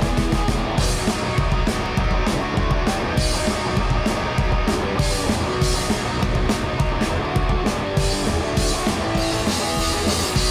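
Live punk rock band playing an instrumental passage: electric guitar over a stand-up drum kit, the drum and cymbals struck with sticks in a steady beat.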